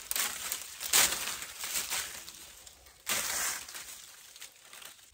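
Dried garden vines and dead leaves being pulled down off a wire trellis: crackling and rustling, with a sharp loud crackle about a second in and another burst at about three seconds.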